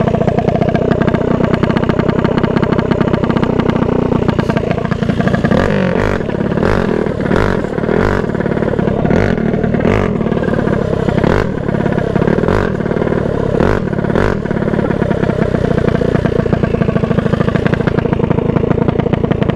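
Methanol-fuelled 236cc billet-head racing mini bike engine running loud and steady, heard close up. About five seconds in, a run of sharp clicks at about one and a half per second lasts some nine seconds.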